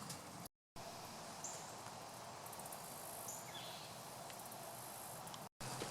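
Faint, steady outdoor background hiss with a few short, faint high-pitched tones. It cuts out completely for a moment about half a second in and again near the end.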